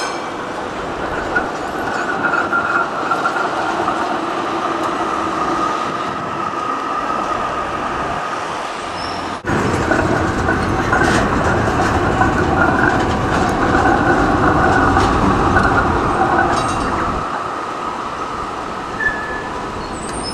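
Electric trams running over street track and curves below, with wheel-on-rail rumble and a steady high whine from the wheels. The sound jumps louder about nine seconds in as a tram passes close by, then eases off near the end.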